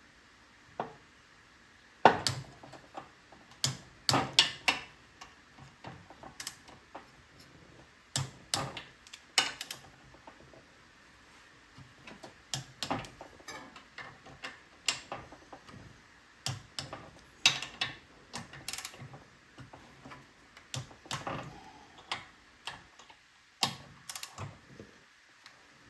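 Torque wrench ratcheting in short runs of sharp clicks as the cylinder head bolts of a Briggs and Stratton small engine are tightened to 18.5 foot-pounds.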